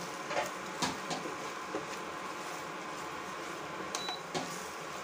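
Slotted spatula stirring and scraping spice masala and fried onions around a stainless steel kadai: a few short scrapes and taps over a low steady sizzle of the frying.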